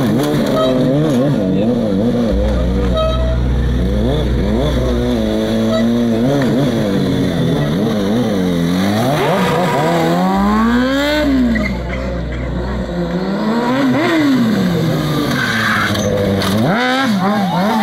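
Stunt motorcycle engine revved up and down over and over, its pitch rising and falling every second or two as the throttle is worked to hold wheelies.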